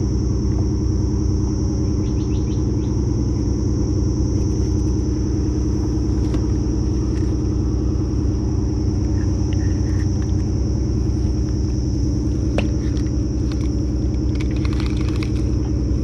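A steady, unchanging engine drone with an even low hum, over a steady high-pitched buzz. A few faint light clicks come through.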